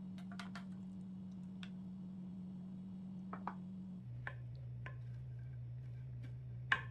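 Light clicks and taps of a wooden spoon and spatula against a ceramic bowl while tossing a shredded cabbage and carrot salad, over a steady low hum that drops in pitch about four seconds in. The sharpest tap comes near the end.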